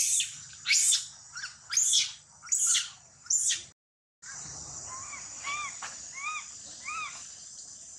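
Young macaque screaming in distress: five shrill rising-and-falling cries about one a second, then, after a short break, four softer arching calls. A steady high insect drone runs behind.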